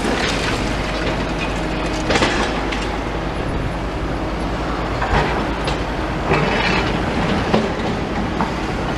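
Diesel engines of demolition excavators running steadily, with several short knocks and clanks from the work breaking up concrete and rubble.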